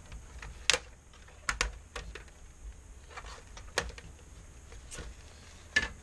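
Plastic latches and the metal frame of an LG Philips LM201W01-SLA1 LCD panel clicking as they are pried apart by hand. There are about seven sharp, irregular clicks, the loudest less than a second in and near the end.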